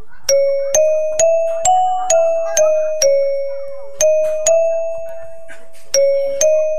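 Railway station public-address chime playing a melody of bell-like struck notes, about two a second, in phrases with short pauses; the last phrase climbs in pitch.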